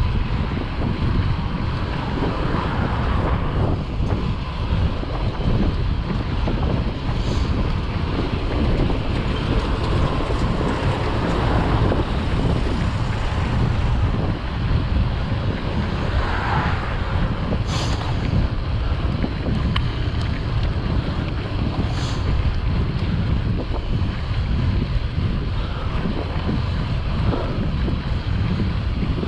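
Steady low rumbling noise, with a few faint sharp ticks.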